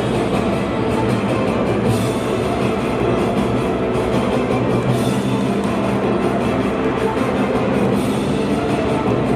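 Floor-exercise routine music playing at a steady level, a rock-style track.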